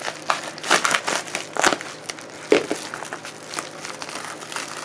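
A package being cut and pulled open: crinkling and rustling of the packaging in short, irregular strokes.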